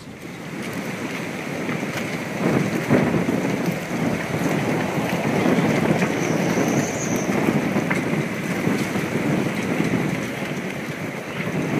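Storm wind and rain ahead of a hurricane: a loud, steady rushing that rises over the first couple of seconds and then holds.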